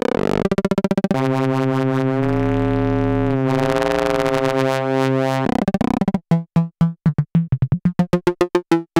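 Make Noise Eurorack modular synthesizer, STO oscillator voices shaped by the Contour envelope generator. Quick pulsing notes give way about a second in to a held tone that bends in pitch and stops about halfway through. It is followed by a run of short plucked notes that speed up, typical of the Contour cycling as a voltage-controlled LFO.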